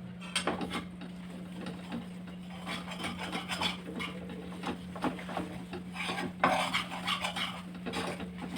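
A spoon stirring and scraping gram flour (besan) into hot ghee in a metal pan: a steady run of irregular scrapes and clicks, with one sharper knock against the pan about six and a half seconds in. A steady low hum sits underneath.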